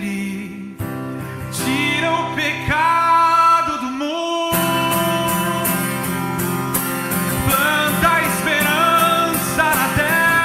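A man singing a Portuguese-language worship song over acoustic guitar accompaniment, with a brief drop in the accompaniment just at the start.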